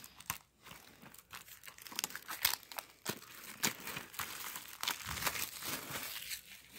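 Plastic shrink wrap crinkling and tearing as it is peeled off a DVD case, in irregular crackles and sharp ticks.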